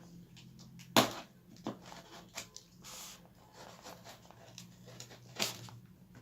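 Parcel being handled and opened: scattered light taps and rustles, with a sharp knock about a second in and another near the end, and a brief rustle of packaging around the middle.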